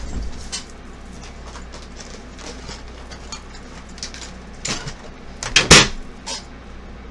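Makeup tools and containers being handled and set down: scattered light clicks and taps, with a louder clatter a little over five seconds in.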